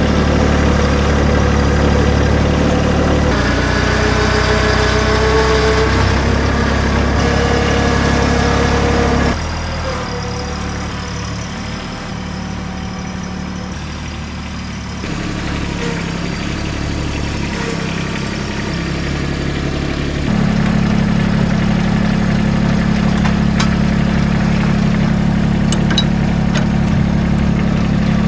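Engine idling steadily, with abrupt changes in pitch and loudness several times and a quieter stretch in the middle.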